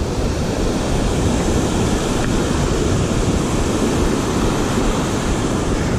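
River water rushing over granite boulders and small rapids: a steady, even rush.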